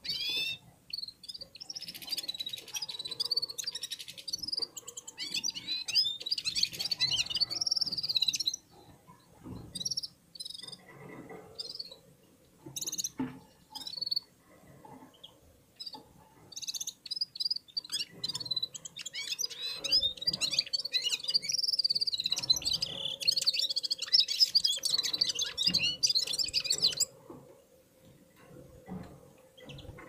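Red-fronted serins (Serinus pusillus) singing: fast, high twittering song in two long stretches, one from the start to about eight seconds in and one from about eighteen to twenty-seven seconds in, with short phrases between and a few light knocks.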